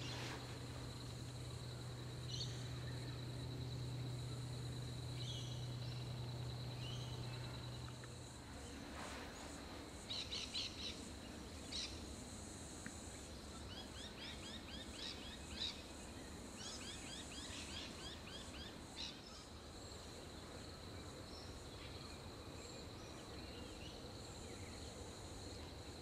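Bush ambience: a steady high-pitched insect trill, with small birds giving short chirps in quick series from about ten seconds in. A low hum sits under the first third.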